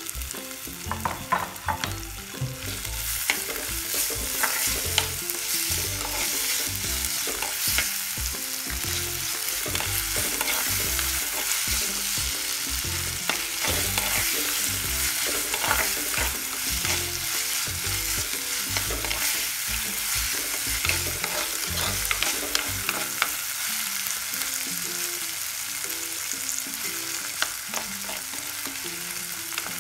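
Onions, green chillies and chopped tomato sizzling in hot oil in a clay pot, stirred with a metal spoon that scrapes and clicks against the pot again and again.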